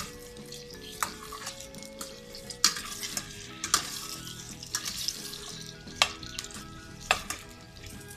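Slotted metal spoon stirring cubed potatoes and carrots frying in oil in a stainless steel pot, with a steady sizzle and a sharp clink of the spoon against the pot roughly once a second.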